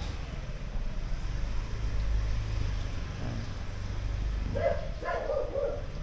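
Street noise: a steady low rumble of passing traffic. About four and a half seconds in, a dog barks several times.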